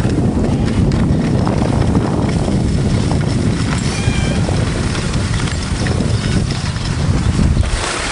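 Wind buffeting the microphone and the rough scrape of gliding over packed snow, a loud continuous rumble that dies down near the end.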